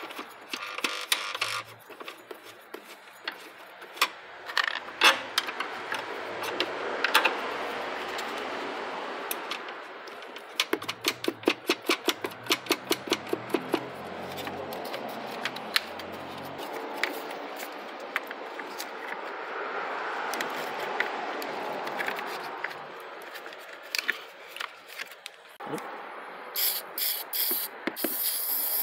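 Hands refitting a car battery's metal hold-down bracket and terminal lead: irregular clicks, knocks and scrapes of metal on plastic, with a run of quick, even clicks near the middle and a few short hissy bursts near the end.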